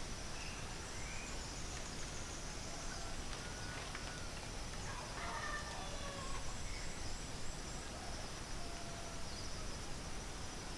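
Outdoor ambience: a steady high-pitched insect drone with faint, short bird chirps now and then.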